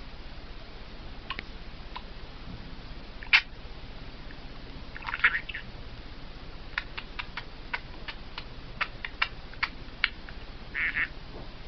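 Budgie pecking and tapping at a toy mirror: a series of sharp clicks, the loudest about three seconds in and a quick run of them in the second half, with two short rattling bursts.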